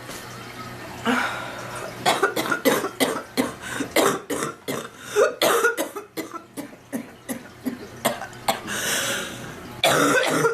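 A sick woman in a coughing fit: rapid, repeated hacking coughs, about three a second, for several seconds, then a long noisy in-breath and a few more coughs near the end.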